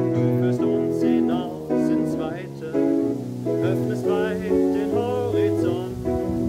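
Nord Electro 6 stage keyboard playing slow, sustained chords through a small amplifier speaker, with a man's voice singing a hymn-like melody over it.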